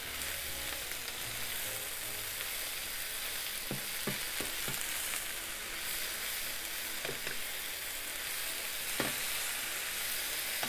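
Chicken, bean sprouts and green pepper strips sizzling in a hot frying pan as they are tossed with a wooden spatula, cooking until the vegetables just wilt. A few light knocks of the spatula against the pan come now and then over the steady hiss.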